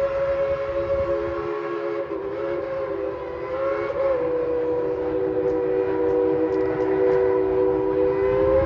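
Steam locomotive chime whistle sounding one long blast of several notes at once, its pitch dipping slightly about four seconds in, over the low rumble of the moving train.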